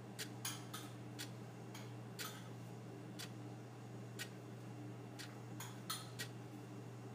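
Sharp ticks about once a second, with a few extra clicks in between, over a steady low hum.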